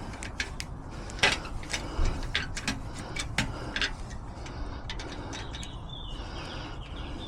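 Small metal clicks and taps at irregular intervals, one sharper than the rest about a second in, over a steady low background rumble.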